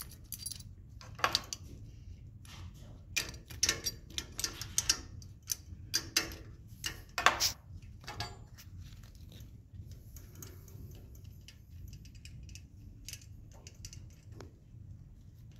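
Metal clicks and clinks from a loom's temple, the pinned metal cloth-edge holder, being handled and worked on by hand. The clinks come irregularly, the loudest about seven seconds in, over a low steady hum.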